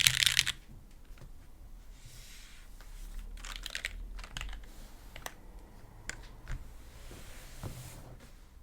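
Mechanical keyboard with lubed linear Cherry MX Black switches, a carbon fibre plate and GMK keycaps being typed on: a fast, loud flurry of keystrokes at the start, then quieter, scattered single key presses that fade out near the end.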